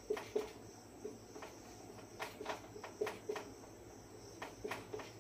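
A marker writing on a whiteboard: a run of short, irregular scratching strokes as letters are written.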